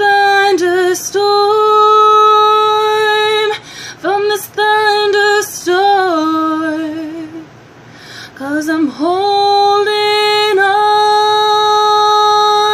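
A woman singing unaccompanied, holding long notes with a light vibrato in three drawn-out phrases, with short breaths between them.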